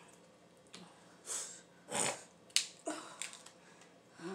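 Crab-leg shells being snapped and cracked open by hand: several sharp cracks from about two and a half seconds in, after two short slurps.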